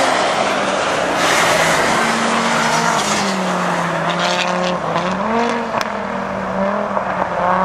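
Turbocharged five-cylinder Audi quattro sliding past on ice, its engine running hard, with a loud rush of tyre and thrown-snow noise in the first two seconds. The engine note drops through the middle and climbs again as the car pulls away.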